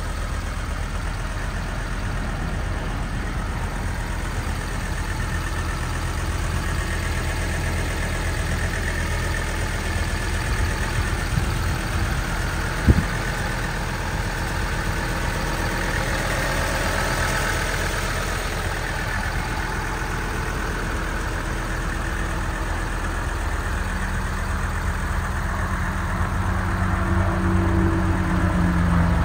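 1980 Mercedes 300SD's five-cylinder turbo diesel engine running steadily, with one sharp click about halfway through; the pitch and level rise a little near the end.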